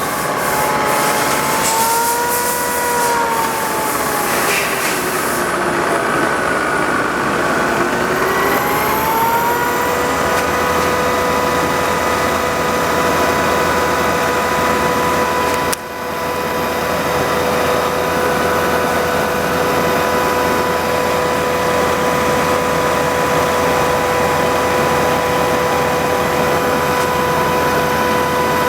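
Sharp LMV variable-speed vertical milling machine running. Its whine rises and falls in pitch for the first ten seconds or so as the speed changes, then holds at a steady pitch over a mechanical hum, with a brief dip in level about halfway through.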